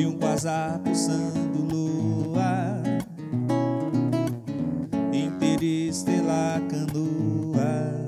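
Nylon-string classical guitar strummed and plucked in a steady rhythm, with a man's voice singing a few held notes with vibrato over it.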